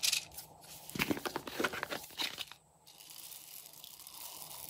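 Plastic bottle of small foam beads handled, the beads rattling and crackling in a dense cluster of clicks, then a steadier rustling patter as they pour out onto the slime near the end.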